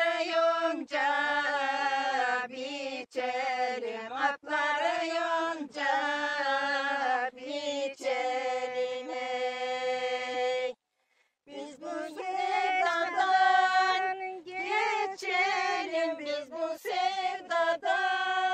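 Women singing a Turkish folk song (türkü) together without accompaniment. A long held note breaks off about eleven seconds in, and after a short pause the singing starts again.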